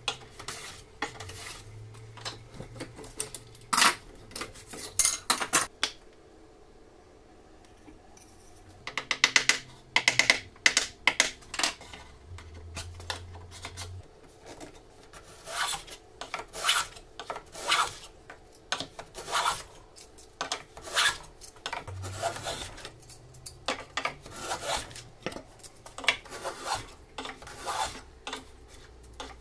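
Small wooden hand plane taking shavings from a beech board, each stroke a short rasping swish. The strokes pause for a few seconds early on, then go on evenly at about one a second.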